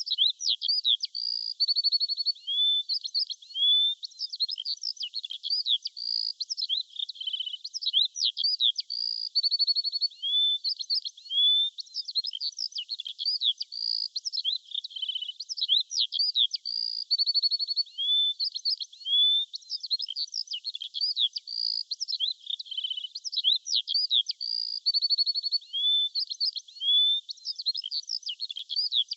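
Songbirds chirping and singing without a break: a dense mix of short chirps, quick rising whistles and fast trills, all high-pitched, with no lower sound beneath them.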